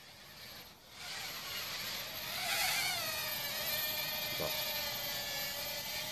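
Hubsan X4 H107C micro quadcopter's four brushed motors and propellers whining, growing louder about a second in as it comes close. The pitch rises briefly, then falls and holds steady as the motor speed settles.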